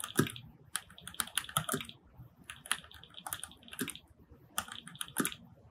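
Typing on a Cougar Puri Mini 60% mechanical keyboard with lubricated Gateron switches and sound-absorbing foam: three quick runs of keystrokes with short pauses between them.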